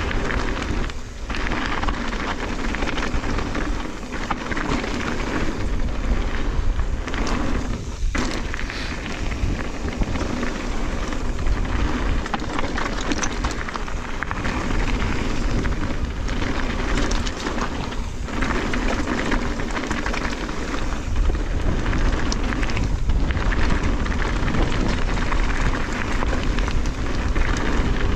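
Mountain bike descending a rough, rocky trail: a steady rumble of tyres over loose slate and the bike rattling, mixed with wind on the action camera's microphone. The noise drops briefly a few times.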